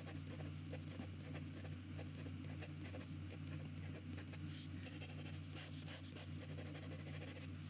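WingSung 601A fountain pen nib scratching across notebook paper in quick, irregular strokes, a pace that tests whether its feed keeps up with the ink flow. A steady low hum runs underneath.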